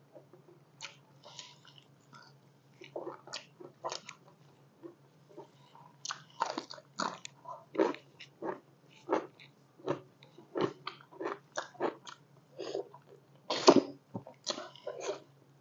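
Close-up chewing and wet mouth sounds of someone eating spicy pork curry and rice by hand: irregular smacks and squishes, sparse at first and coming thicker and louder from about six seconds in. A faint steady low hum runs beneath.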